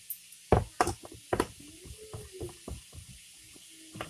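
Plastic clicks and knocks of a personal blender's blade lid being screwed onto its plastic cup, several sharp clicks in the first second and a half, then sparser, lighter ones. A faint wavering hum sits underneath.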